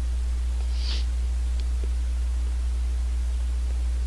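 A steady low hum, with a short breathy hiss about a second in and a couple of faint clicks.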